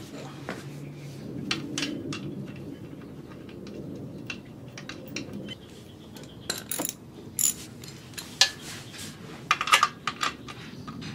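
Metal clicks and clinks of a hand wrench on the oil drain bolt of a Kawasaki ZX6R's oil pan as the bolt is refitted and tightened after an oil change. The sharp ticks come irregularly, thickest in the second half, over a faint low hum in the first half.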